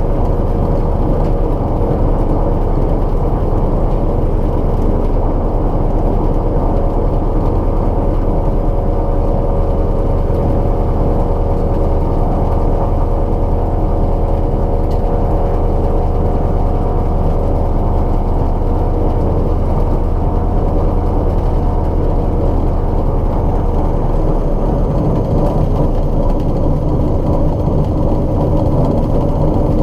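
Light aircraft's piston engine running steadily at low power. Its tone shifts slightly about 24 seconds in.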